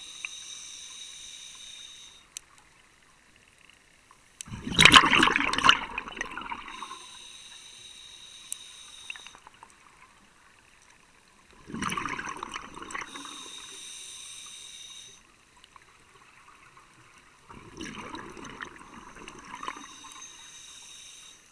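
A scuba diver breathing through a regulator underwater: a steady hissing draw on each inhale, then a loud rush of exhaled bubbles, about three breaths.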